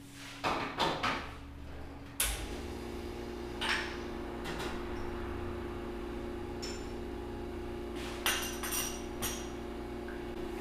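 Espresso machine pump starts about two seconds in and runs with a steady hum as the espresso shots are brewed. Sharp knocks near the start and scattered light clinks of portafilter and cups over the hum.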